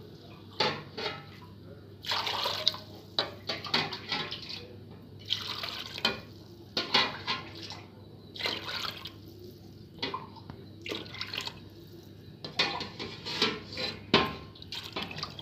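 Water poured into a wide metal pot of cooked mutton pieces, splashing in a series of short pours, several glassfuls one after another.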